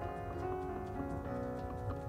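Background instrumental music with sustained notes over a steady, evenly ticking beat.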